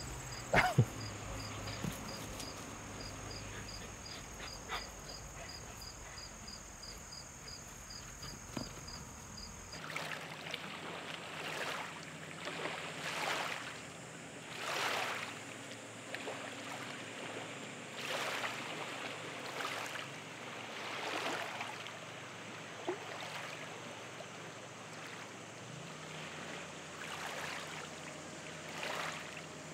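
Crickets chirp in an even pulse for about the first ten seconds. Then the sound changes abruptly to water washing in repeated swells, one every second or two.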